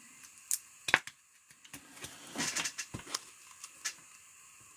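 Sports trading cards being handled: a few sharp clicks and snaps of cards, with a brief crackly rustle about two and a half seconds in.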